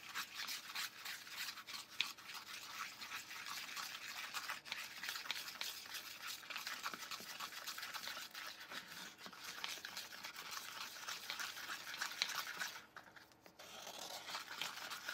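Small plastic spoon stirring and scraping a thick paste of pretzel glaze mix and water in a small plastic bowl, in quick scratchy strokes, with a short pause near the end.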